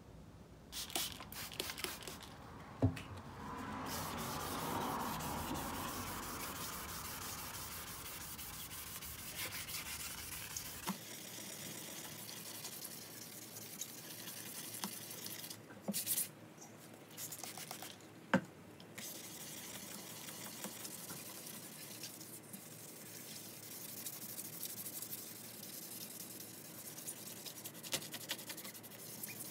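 Fine 2000-grit wet/dry sandpaper rubbed by hand along a steel hand-saw blade, a soft continuous scratchy rub with a few sharp clicks.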